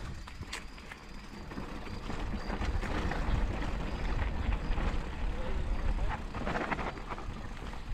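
Wind buffeting the microphone over the tyres of a Schwinn Boundary hardtail mountain bike rolling down a dirt singletrack, with short knocks and rattles from the bike over bumps, a cluster of them near the end.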